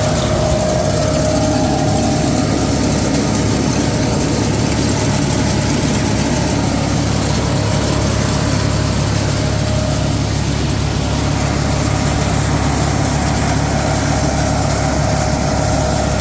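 Hasatsan H2200 hazelnut harvesting machine running steadily: an even engine drone with a constant thin whine above it.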